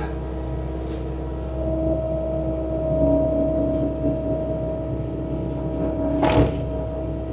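Bobcat T66 track loader's diesel engine and snowblower attachment running steadily, a constant drone with a held hum. A brief noise about six seconds in.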